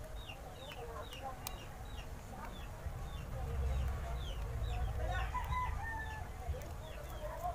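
Chickens calling: a steady run of short, high peeps, about two a second, with a lower drawn-out call about five seconds in.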